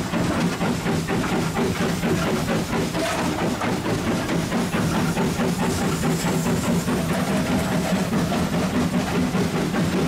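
GWR Modified Hall 4-6-0 steam locomotive working hard, heard from inside its cab: a steady, fast, even beat of exhaust and running noise, with the firebox door open.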